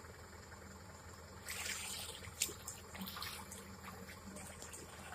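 Sand and gravel hissing and trickling as it slides, with a few sharp clicks of stones, starting about a second and a half in and dying away over the next two seconds, over the steady low hum of an idling diesel engine.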